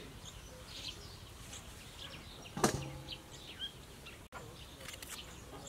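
Birds chirping in the background, with one sudden loud knock about two and a half seconds in that rings briefly.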